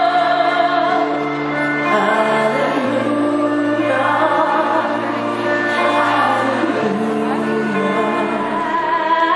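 Slow music with singing, its long-held bass notes changing every few seconds.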